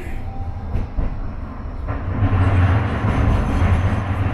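Modern electric tram running along its rails, heard from inside the car: a steady low hum and rumble with a rushing noise that grows louder about two seconds in.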